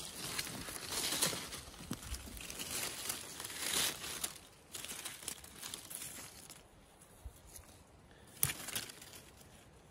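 A gloved hand rustling and scraping through dry leaves, pine needles and twigs on the forest floor while digging out matsutake mushrooms. The rustling is busiest in the first half, then quieter, with one sharp click near the end.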